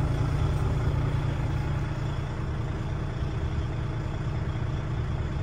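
DAF XF 6x2 tractor unit's diesel engine idling steadily in neutral, heard from inside the cab.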